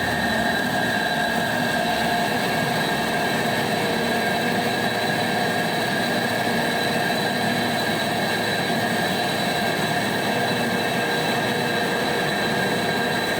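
Diesel-powered mobile wood chipper running steadily at a constant speed during a factory test run: an even mechanical noise with a steady high whine.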